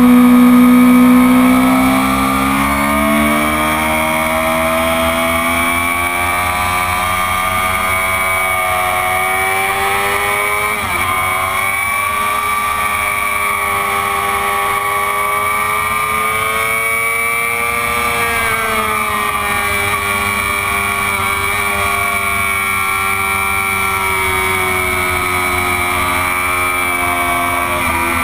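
Stock 2004 Honda CBR600RR inline-four engine running under load on track, heard from onboard. Its pitch drifts slowly up and down, with a brief dip about eleven seconds in, and it is loudest in the first two seconds.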